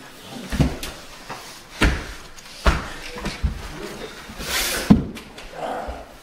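A few separate thumps and knocks, about one a second, with a short swishing rustle just before the loudest knock near the five-second mark, as two people scuffle.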